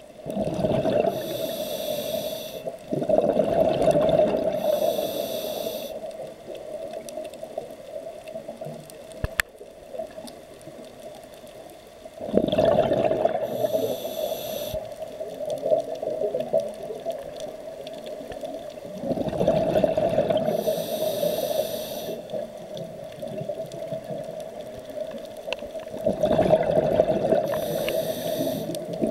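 Scuba regulator breathing underwater: a rush of exhaled bubbles and a hissing inhale that repeat every several seconds, over a steady hum.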